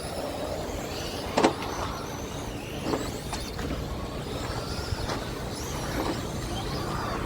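Several 2WD short course RC trucks racing on pavement: high motor whines that rise and fall with the throttle over a rumble of tyre and road noise, with a few sharp knocks, the loudest about a second and a half in.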